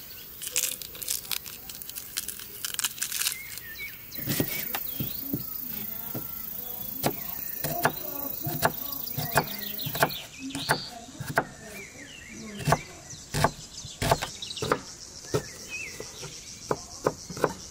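A knife slicing a red onion on a wooden cutting board: steady chops of the blade onto the board, about one and a half a second, through the second half, with birds chirping. In the first few seconds there are lighter crackles and clicks of the papery onion skin being peeled with the knife.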